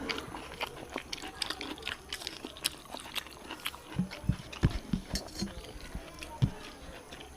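Close-up eating sounds: wet chewing and lip smacks with many small clicks, and a few low thumps about four to six and a half seconds in.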